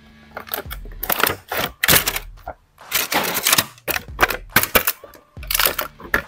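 Clear plastic blister tray and cardboard box of an action figure crinkling and clicking as they are handled and the figure is pulled out of the tray: irregular runs of sharp crackles with short lulls between them.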